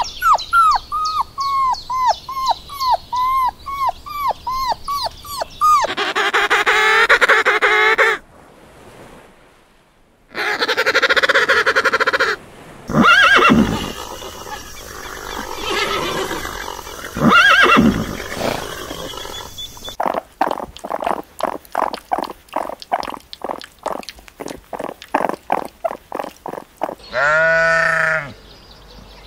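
A sequence of animal calls. For the first several seconds, puppies whimper in a steady string of short high calls, about two a second. Further animal sounds follow, with a single sheep bleat near the end.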